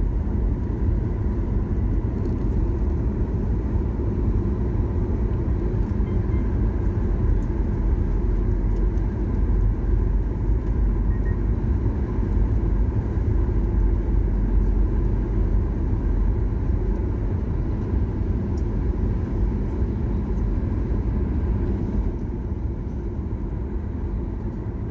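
Steady rumble of an airliner's jet engines and rushing airflow heard inside the passenger cabin during the climb after takeoff, with a faint steady hum on top; it eases a little near the end.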